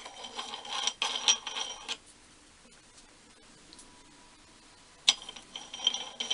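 Light metallic ticks and clinks of a small steel wing nut being handled and threaded onto a bolt. The clinks come in two spells, with a quiet pause of about three seconds between them.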